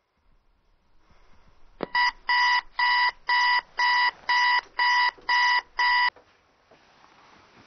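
Digital bedside alarm clock going off: a click, then a steady electronic beep repeating about twice a second, nine beeps in all, cut off abruptly when its button is pressed.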